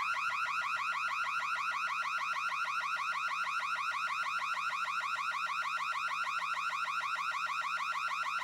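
Electronic security alarm sounding, starting abruptly out of silence. It plays a fast, evenly repeating warble of rising electronic tones.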